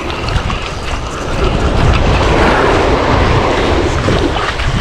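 Surf washing up the beach with wind buffeting the microphone; the wash swells in the middle and eases off toward the end.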